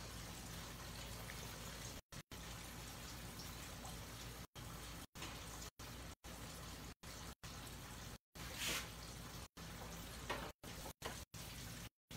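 Breaded catfish deep-frying in hot oil: a steady, faint sizzle and crackle, with a brief louder hiss about three-quarters of the way through. The sound drops out to silence for short moments again and again.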